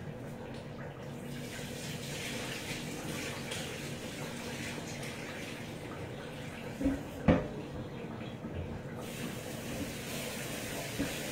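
Kitchen tap running into a sink as something is rinsed, with two sharp knocks about seven seconds in, after which the water thins for a moment before running again. A faint steady low hum lies underneath.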